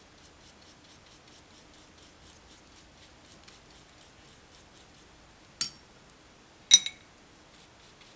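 Soft watercolour brush strokes on crepe-paper petals: a faint, repeated scratchy rustle. Two sharp, ringing clinks of the brush against hard tableware come about five and a half and just under seven seconds in.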